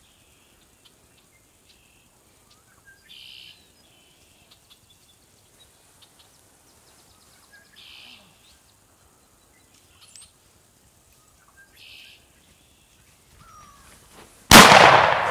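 A shotgun fires once near the end: a sudden, very loud blast that fades out over a second or two. Before it, only three faint high chirps a few seconds apart.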